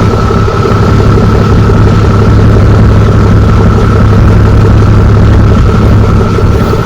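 A large engine idling steadily, a constant low hum with a fixed higher whine.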